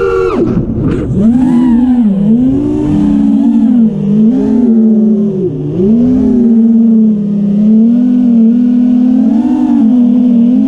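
A loud sustained tone with many overtones, wavering and sliding up and down in pitch, with a few sharp dips.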